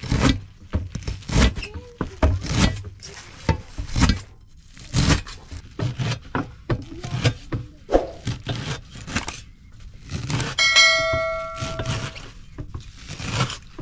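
Kitchen utensils clattering and scraping in an irregular run of knocks. About eleven seconds in, one metal object rings out clearly for a second or so.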